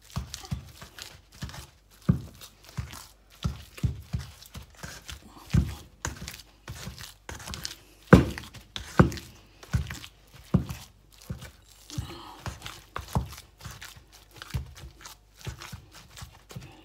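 Hand kneading and mashing a ground chicken and chana dal shami kabab mixture in a metal bowl: irregular squelching and soft thumps, one or two a second.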